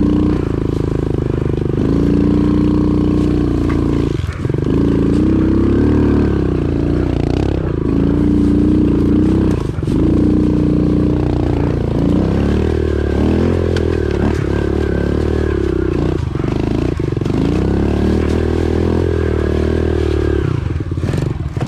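Pit bike engine being ridden hard up a rough trail, revving up and dropping back again and again, with short breaks off the throttle about four and ten seconds in and near the end.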